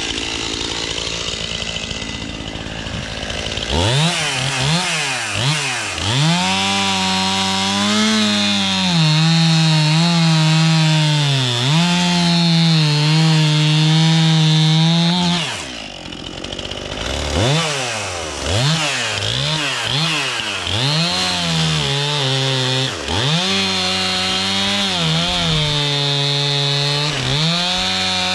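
Two-stroke chainsaw idling for a few seconds, then revved up and cutting through an old cherry log, its pitch dipping and recovering as the chain loads into the wood. About halfway through it drops back briefly, then revs up and cuts again.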